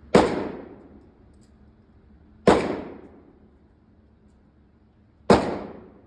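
Three single gunshots about two and a half seconds apart, each a sharp crack with a short echoing tail inside an indoor range.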